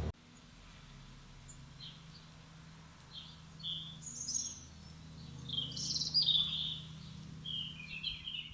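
Garden songbird singing short, high chirping and warbling phrases, sparse at first and then louder and busier in the second half.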